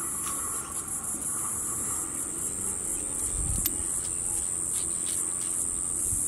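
A steady high-pitched insect chorus, breaking into quick pulses a couple of seconds in, with a few faint clicks from the small metal clip being worked off an old rear brake pad.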